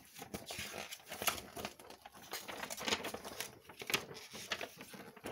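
Plastic packaging crinkling and rustling, with many small clicks and knocks, as hands rummage through a model kit box and its bagged parts.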